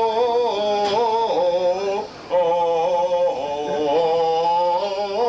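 A man's voice making a wordless vocal sound effect: held, wavering notes that step up and down in pitch, with a brief break about two seconds in.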